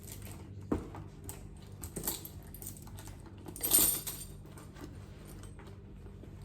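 Light metal clinks and a jingle as a shoulder bag with a metal chain strap and its contents, car keys among them, are handled: a few sharp clinks, the loudest about four seconds in, among soft handling noises.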